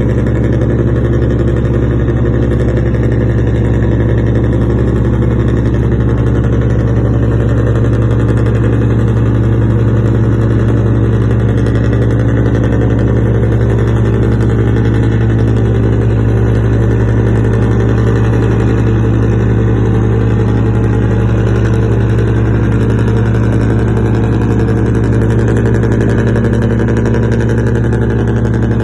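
Fishing boat's inboard engine running steadily at a constant speed, an even deep drone with no revving.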